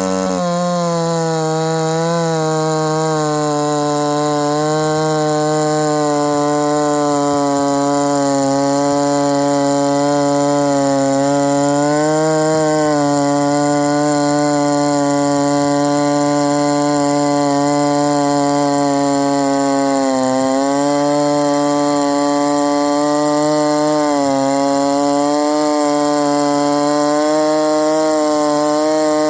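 Chainsaw mounted in a Logosol jig milling attachment, running steadily at high speed while ripping a log lengthwise. Its pitch dips and recovers a few times as the cut loads it.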